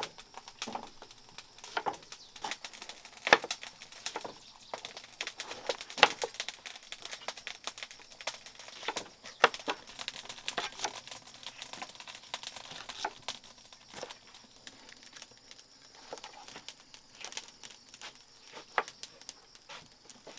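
Cleavers cutting onions and bell peppers on chopping boards: irregular sharp knocks of the blades striking the boards, a couple of louder strokes about 3 and 6 seconds in.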